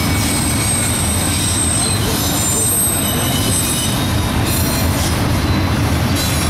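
BNSF double-stack intermodal well cars rolling past, a steady low rumble of steel wheels on rail. Thin, high-pitched wheel squeals come and go over the first four seconds or so.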